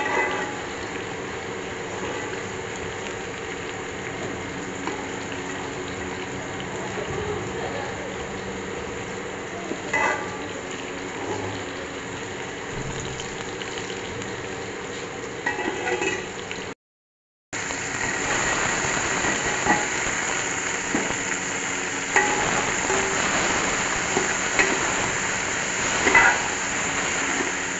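Sliced okra frying in oil in a metal pot: a steady sizzle with an occasional clink of the ladle stirring. After a short break in the sound, chopped onions sizzle louder in the oil, with more frequent ladle clinks and scrapes against the pot.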